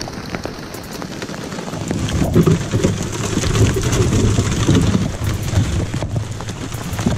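Heavy rain pouring down onto the river and the kayak, with sharp ticks of drops striking close by. A low rumble swells in the middle and eases off again.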